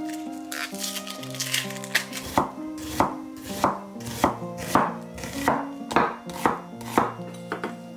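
Dry onion skin crackling as it is peeled off by hand, then a chef's knife slicing an onion on a wooden cutting board: about ten even strokes, nearly two a second, over soft background music.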